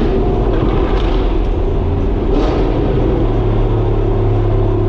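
Audi R8's V8 engine running steadily while the car is driven on the road, heard from inside the car; its low note grows stronger about three seconds in.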